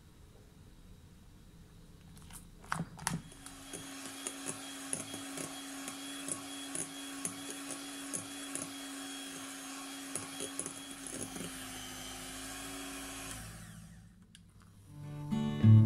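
Electric hand mixer starts after a couple of clicks and runs at low speed, beating thick cake batter in a bowl with a steady hum and scattered light ticks. The low-speed beating knocks the air bubbles out of the batter. The motor stops about fourteen seconds in and acoustic guitar music begins near the end.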